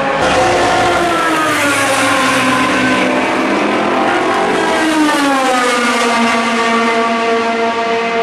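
Racing engines of endurance prototype race cars running at speed on the circuit. The pitch sinks over the first few seconds, then climbs again about five seconds in and holds as the cars power on.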